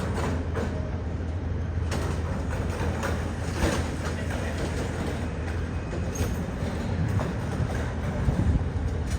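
Train running on the rails: a steady low rumble with a few sharp clicks of the wheels over the rail joints.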